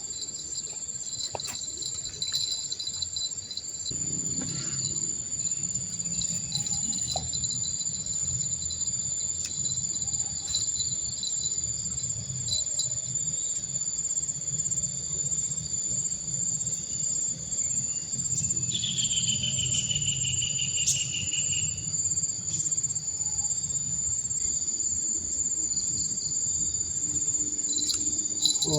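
Steady, high-pitched chorus of insects such as crickets or cicadas, with a low, even rushing sound beneath it from about four seconds in. A short pulsing trill breaks in briefly around the middle.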